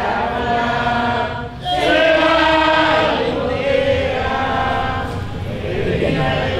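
A group of voices singing together in slow, long-held notes, with a short break for breath about one and a half seconds in.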